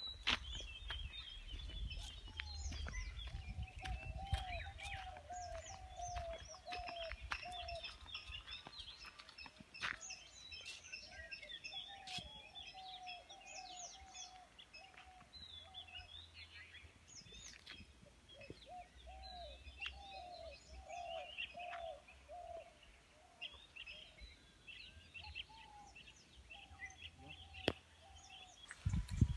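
Several birds chirping and calling over one another, with a lower call repeated in runs of quick notes every few seconds. A low rumble lies underneath.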